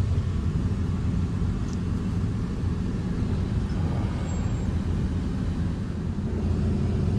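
Steady low rumble of a vehicle on the move, engine and road noise heard from inside.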